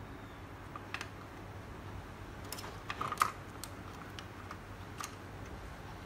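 Light clicks and taps of a laptop motherboard being handled and seated into its plastic case, with a cluster of clicks in the middle, loudest about three seconds in, over a low steady hum.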